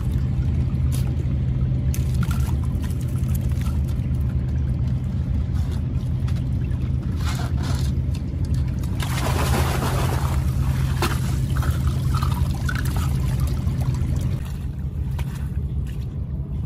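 Water trickling and pouring over a steady low motor hum, with a louder gush of pouring or splashing water about nine seconds in and a few scattered knocks. The hum drops away near the end.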